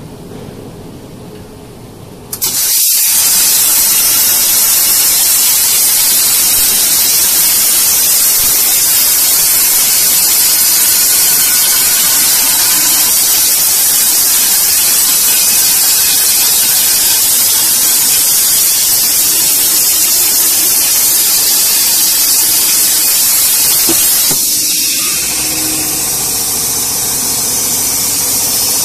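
CNC plasma cutting torch cutting steel plate: a loud, steady hiss that starts suddenly about two seconds in when the arc fires and stops near the end, leaving a quieter hiss and a low machine hum.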